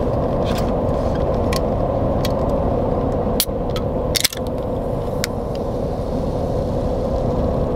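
Aluminium drink can's pull tab being cracked open, a few short sharp clicks with the strongest about halfway through, over a steady hum inside a vehicle cabin.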